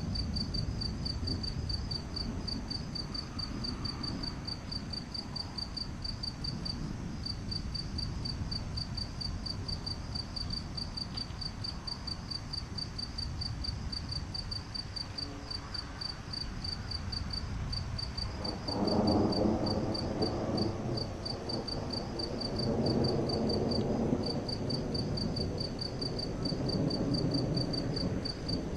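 Night insects, crickets, chirping in a fast, steady, high-pitched pulse over a low background rumble. About two-thirds of the way in, a louder low rumble swells and then rises and falls.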